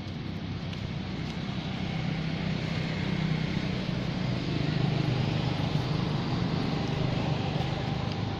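A motor running steadily with a low hum, swelling a little louder through the middle.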